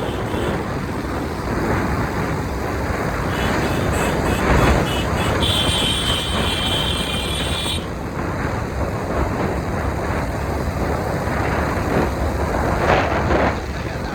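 Wind buffeting the microphone over motorbike engine and road noise while riding. About halfway through, a high steady tone sounds for about two seconds.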